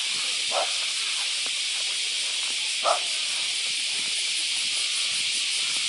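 Steady, unbroken high-pitched buzzing of insects filling the air, with two brief short sounds, about half a second and three seconds in.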